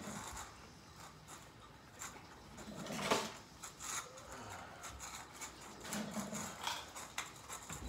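Cats eating from bowls and cans on a tiled floor, with scattered small clicks and taps of bowls and footsteps, and a louder knock about three seconds in.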